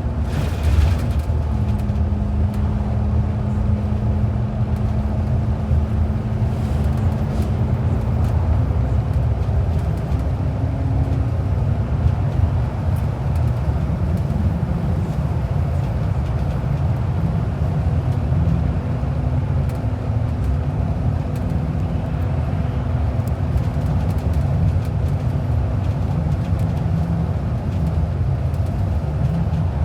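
Inside a moving transit bus: steady low engine drone and road rumble, the engine note shifting a few times as it changes speed. There is a brief hiss about half a second in.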